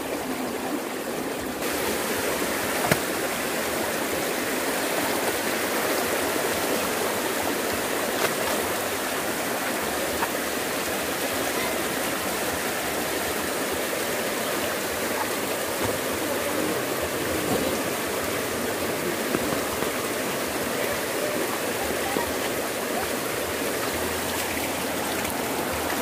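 Steady rush of flowing creek water, with a few faint knocks.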